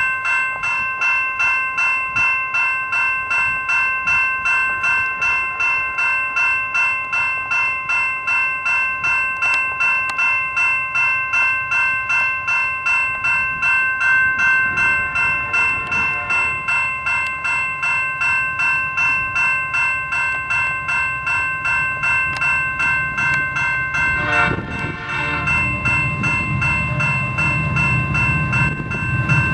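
Railway grade-crossing bell ringing steadily at about two strokes a second. Late on, the low rumble of approaching diesel locomotives rises under the bell.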